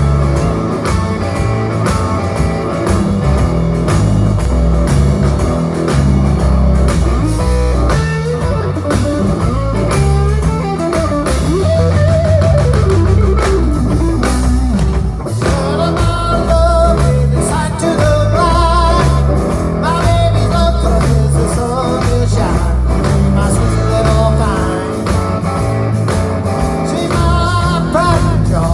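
A live blues-rock band playing a Texas-style shuffle: electric guitar, electric bass and drum kit, heard through the stage PA. The guitar plays bending, wavering lead lines over a steady bass and drum groove.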